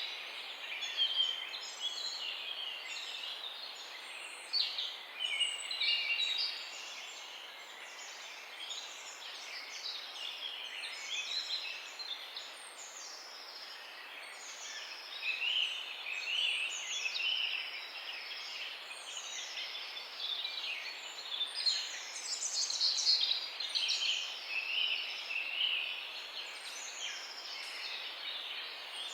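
A morning chorus of many songbirds chirping and singing over one another, with short chirps, trills and sweeping whistled calls overlapping without a break, over a faint steady hiss.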